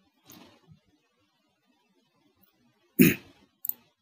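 A single sharp cough about three seconds in, followed shortly by a short mouse click.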